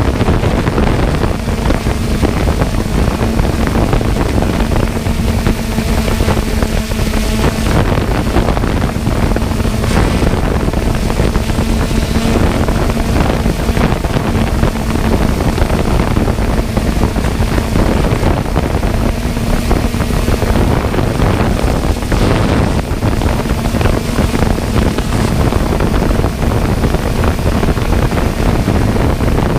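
Steady wind buffeting the microphone over a constant motor hum that holds one pitch, fading in and out.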